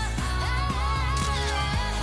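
Background pop music with a singing voice over a steady beat.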